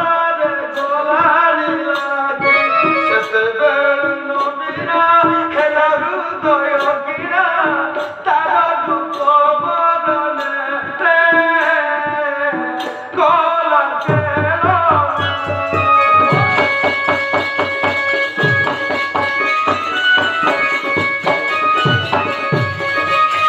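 Folk-style stage music for a play, loud: a wavering melodic line over light drumming, which changes about two-thirds through to a busier drum-led rhythm with a deep bass.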